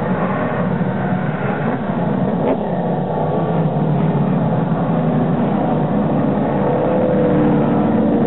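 A pack of short-track stock cars racing past at speed, many engines running together in a steady, loud mix.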